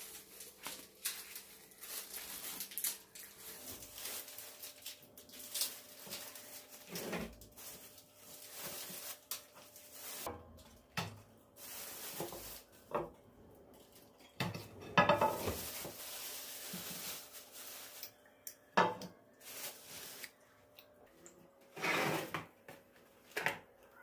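Thin plastic food bags rustling and crinkling as pastries are bagged by hand, with irregular knocks and clatters of a plastic container and tray against a wooden table.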